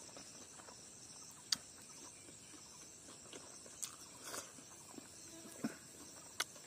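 Faint steady chirring of insects, broken by a handful of soft sharp clicks from chewing.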